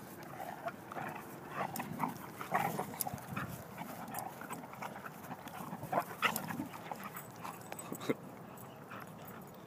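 Dalmatian and German shorthaired pointer play-fighting: a run of short, irregular dog sounds with a few sharp knocks, loudest about the middle and again near the end.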